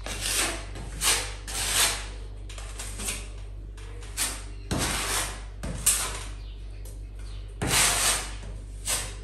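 Metal filling knife scraping filler along a crack in a plaster ceiling, in a series of short scraping strokes roughly one a second, with longer sweeps about five and eight seconds in.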